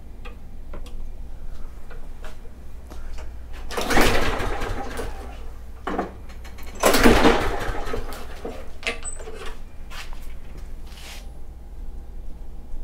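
Two pulls on the recoil starter of a Briggs & Stratton Quantum lawnmower engine, about three seconds apart. Each is roughly a second of rope whir and cranking, and the engine does not catch, which the owner takes for a flooded engine.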